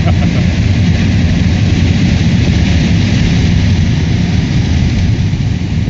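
Vehicle with a small six-cylinder engine and a rebuilt 4L60E automatic transmission cruising at steady speed, heard from inside the cab: a steady low engine and drivetrain rumble under a constant rush of road and wind noise.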